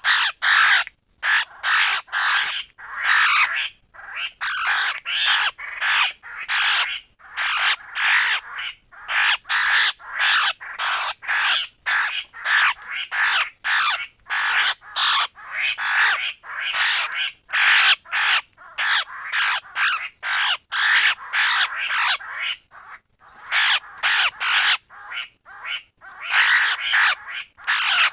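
Laughingthrush giving its harsh 'kíu' call over and over, two or three calls a second with only brief pauses.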